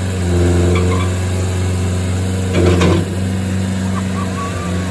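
Skid-steer engine running steadily, with a brief louder burst of noise about two and a half seconds in.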